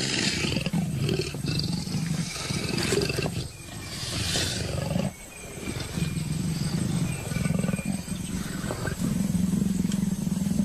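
A male and female leopard growling and snarling at each other in long, low, pulsing growls, with a few short hissing snarls. These are the threat and appeasement calls of a pair's first courtship meeting, with the male asserting dominance.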